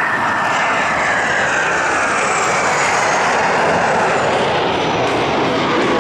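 Dassault/Dornier Alpha Jet engines of the Patrouille de France solo pair passing at an air show: a loud, steady jet noise with a whine that falls in pitch as the aircraft go by.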